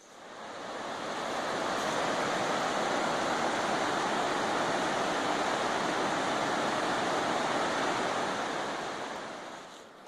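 Steady rushing roar of a waterfall, fading in over about the first two seconds and out over the last two.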